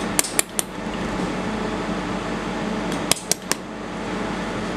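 Two quick runs of three sharp metallic clicks, one just after the start and one about three seconds in, over a steady machine hum like a cooling fan.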